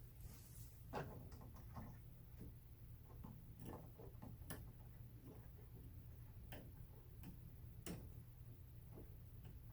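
Faint, irregular plastic clicks from the hinged ramp of a LEGO brick model being worked down by hand, over a low steady hum.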